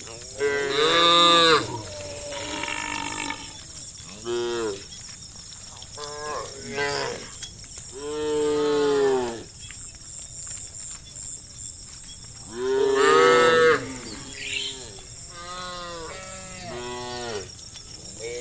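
Several cows mooing, with repeated overlapping calls that each arch up and down in pitch. The loudest calls come about a second in, around eight seconds and around thirteen seconds.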